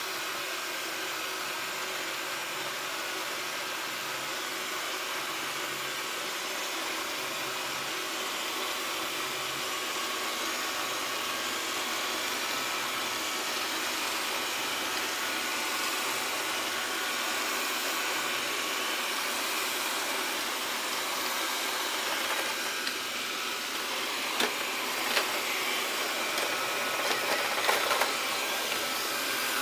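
Xiaomi Mi robot vacuum cleaner running with a steady whir from its fan and brushes. A few sharp clicks or knocks come near the end.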